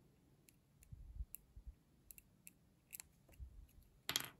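Fine wire needle scratching and clicking in the engraved star on the end of a Montblanc 322 fountain pen: faint scattered ticks, then a short louder scrape near the end, with soft bumps from the fingers handling the part.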